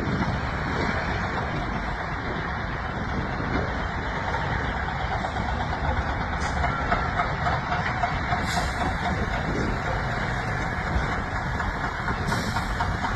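Heavy diesel truck engine running steadily, with a few short high hisses about six, eight and twelve seconds in.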